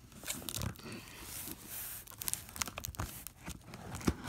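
Clear packing tape and cardboard flaps of a shipping box crackling and tearing as they are pulled and cut open, a run of irregular crackles and sharp clicks.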